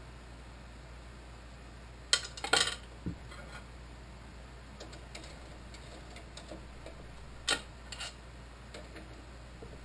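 Small metal tools and parts being handled at a drill press: a quick cluster of sharp metallic clinks about two seconds in and two more near the end, over a faint steady hum.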